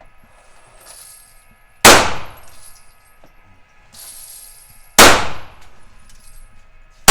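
Two gunshots about three seconds apart, each ringing out briefly, with a third shot at the very end.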